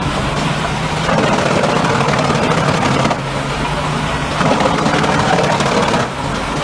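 A forestry wood chipper's engine running steadily, a low hum under a noisy wash, changing abruptly about a second in, about three seconds in and near the end.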